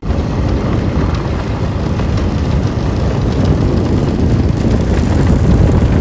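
Wind buffeting the microphone and road noise from a moving motorcycle, with the engine running underneath, starting abruptly and staying steady.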